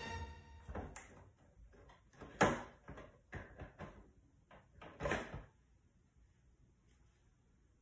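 Knocks and clicks from parts of a new Ninja coffee maker being handled and worked loose, with two louder clunks, about two and a half and five seconds in.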